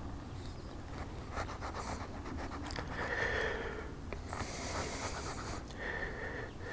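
A small knife cutting and scraping through grapefruit rind in short strokes, with the carver's breathing audible between strokes.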